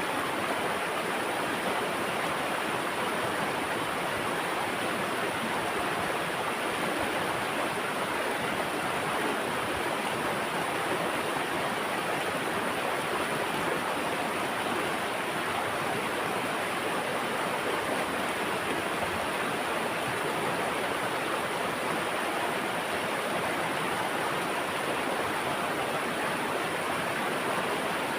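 Running water rushing steadily and without a break.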